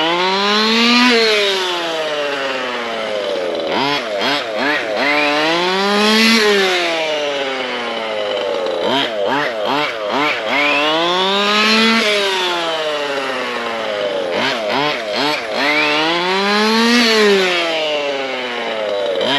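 ESP 30.5cc two-stroke race engine in a Losi 5ive-T 2.0 large-scale RC truck being run in with heat cycles: it revs up and eases off about every five to six seconds, with short throttle blips between the runs.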